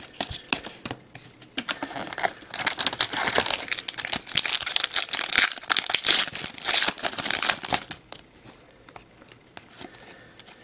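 A trading-card pack wrapper being torn open and crinkled: a dense crackling from about two and a half to eight seconds in, with lighter clicks of the cards being handled before and after.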